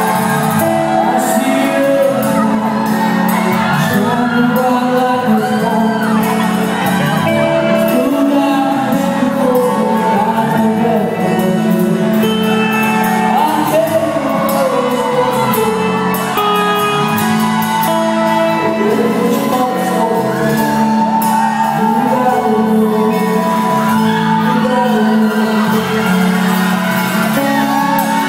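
A live band playing in a large hall, drums, keyboards and guitar, with a voice singing over it.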